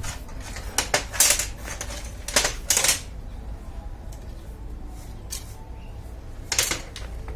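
Metal tools and parts clinking and knocking in three short clusters, about a second in, around two and a half seconds, and again near the end, over a steady low hum.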